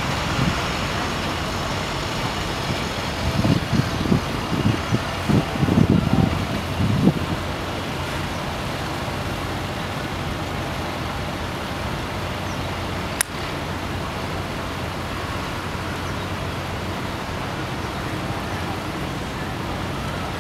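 Steady outdoor city ambience: an even hum of distant traffic. A few seconds in there are several low rumbling bursts, and one sharp click comes about two-thirds of the way through.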